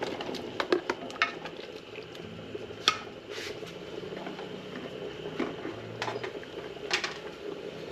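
Diced potatoes tipped from a plastic tub into a pot of simmering stew, with a few sharp knocks of the tub and ladle against the aluminium pot, over a steady bubbling of the stew.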